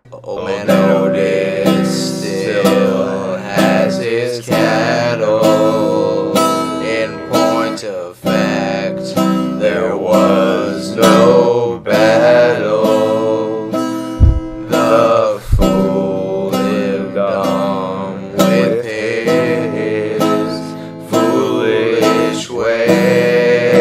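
Music: a song played on a strummed acoustic guitar.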